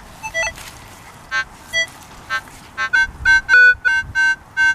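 Minelab CTX 3030 metal detector sounding target tones as its coil is swept over a buried signal: a few scattered short beeps at first, then from about three seconds in a quick run of repeated two-tone beeps, about three a second.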